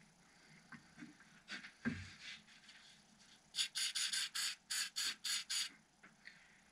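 A quick run of about nine short hisses, roughly four a second: a pump spray bottle of CA glue accelerator being sprayed onto freshly applied thin super glue to set it. A few light clicks and a dull thump come before it, about two seconds in.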